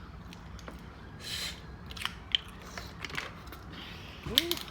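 Crab leg shells being cracked and pulled apart by hand while eating, a series of sharp irregular cracks and clicks, with a short hiss of shell or meat tearing about a second and a half in.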